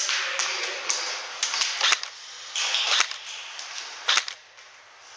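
Airsoft gun firing single shots in an irregular string of about a dozen sharp cracks, which stop a little after four seconds in.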